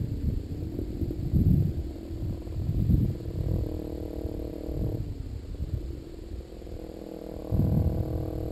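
Kawasaki Ninja 250R's parallel-twin engine idling through its exhaust: a steady, low, lumpy rumble with no revving.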